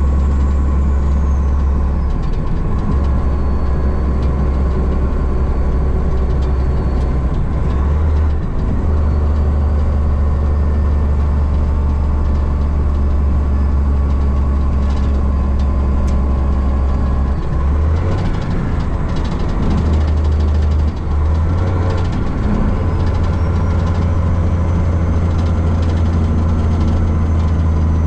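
Dump truck's engine running steadily at road speed, a loud low drone heard inside the cab along with road noise; the drone dips briefly a few times.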